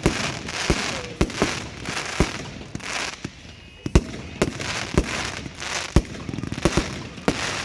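Firework display going off at close range: many sharp bangs, irregular and a few each second, over a continuous crackling hiss, with a short lull about halfway through.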